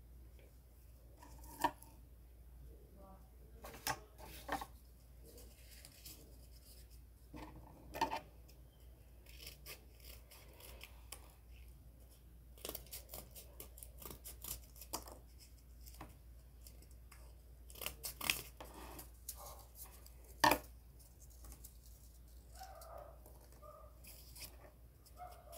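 Scissors cutting cardboard in irregular snips, with the rasp and clicks of cardboard pieces being handled.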